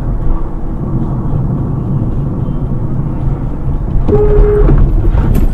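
Car driving, with a steady low rumble of engine and road noise. A brief single steady tone sounds about four seconds in, and a sharp click comes near the end.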